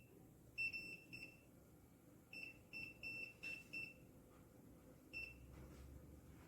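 A series of short, high electronic beeps, all at the same pitch, in irregular clusters through the first four seconds, then one more beep about five seconds in.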